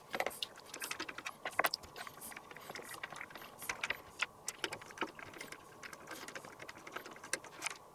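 Small irregular clicks and ticks of screws being turned out and metal mounting brackets being handled on a PC motherboard, as the water-cooling brackets around the CPU socket are unscrewed.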